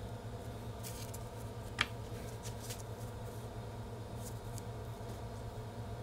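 Small metal parts being handled by hand: light scratchy ticks and one sharp metallic click with a brief ring about two seconds in, over a steady low hum.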